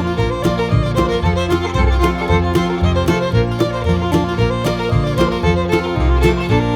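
Bluegrass-style music with fiddle over guitar and a steady beat.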